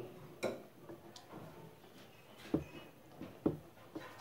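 A few faint, scattered knocks and taps, about four in all and irregularly spaced, the first and sharpest about half a second in.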